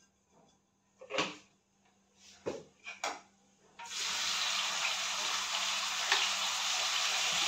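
A few light clinks of steel kitchenware, then, about four seconds in, a sudden steady sizzle as ingredients tipped from a plate hit hot oil in a kadhai: the start of the tadka for aloo methi sabzi.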